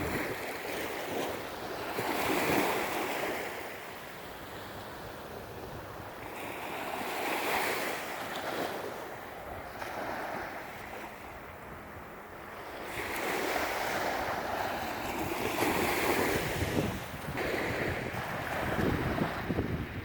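Rushing outdoor noise of surf and wind, swelling and fading every few seconds, with wind buffeting the microphone near the end.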